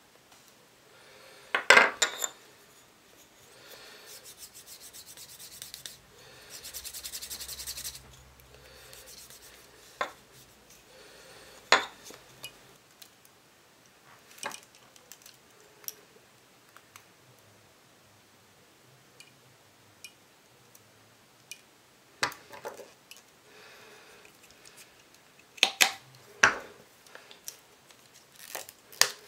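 A small block rubbed back and forth along the edge of a veg-tanned leather watch strap for a few seconds, then scattered sharp clicks and knocks of hand tools on the strap, among them a revolving leather hole punch.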